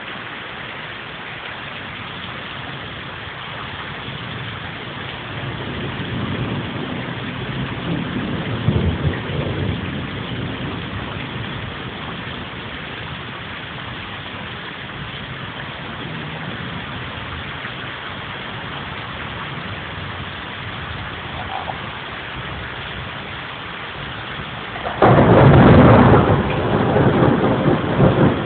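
Steady rain falling in a thunderstorm, with rolling thunder: a low rumble swells and fades a few seconds in, then a sudden loud thunderclap near the end keeps rumbling.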